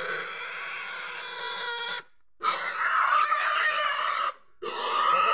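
A pig squealing while it is held down and its throat is stuck for slaughter: three long, loud screams with two short breaks between them.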